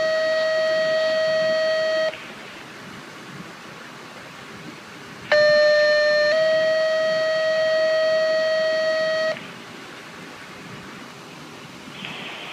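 Dispatch radio two-tone paging tones. A steady tone ends about two seconds in, and after a pause a second page sounds about five seconds in: a short lower tone stepping up to a longer, slightly higher one that holds for about three seconds. The tones page a unit on the dispatch channel.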